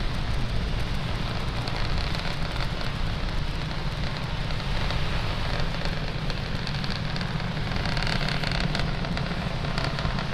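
Falcon 9 first stage, its nine Merlin engines firing during ascent, making a steady deep rumble with a hiss over it.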